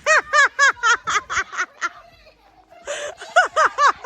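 A person laughing in rapid, high-pitched ha-ha pulses, a run of about ten in the first two seconds, then a second run starting about three seconds in.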